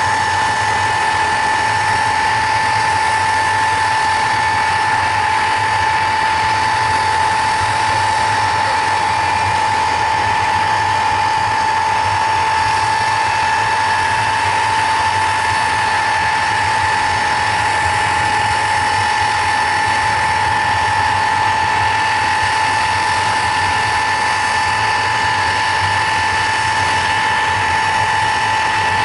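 Ilyushin Il-62 jet airliner's turbines running with a steady high whine over a broad rush, holding one pitch throughout while the aircraft stands still.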